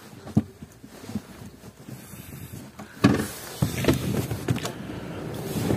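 A sliding interior fitting of an Opel Zafira moved by hand along its rails, with plastic clicks, rubbing and several knocks. It clicks once shortly after the start and gets louder and busier about halfway through.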